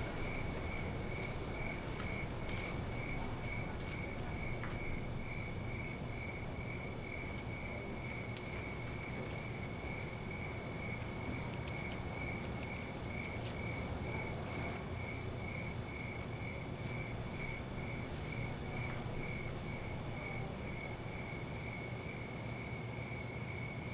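Crickets chirping in a steady, evenly pulsed high trill, over a low, even background rumble.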